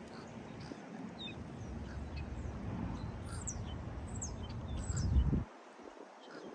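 Small birds chirping with short, high notes falling in pitch, over a low rumble that builds and cuts off suddenly about five seconds in.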